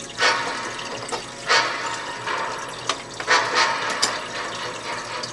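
Water splashing in a fish tank: about half a dozen short, sharp splashes over a steady trickle of running water, the largest near the start and around a second and a half in.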